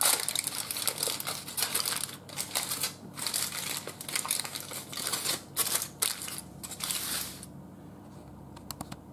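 Aluminium grilling foil crinkling and crumpling in quick rustling bursts as it is folded by hand, dying down about a second and a half before the end.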